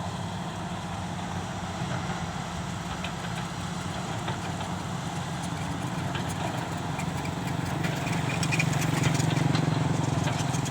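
Excavator's diesel engine running steadily, getting louder about eight seconds in as it works harder, with scattered clicks and rattles over it.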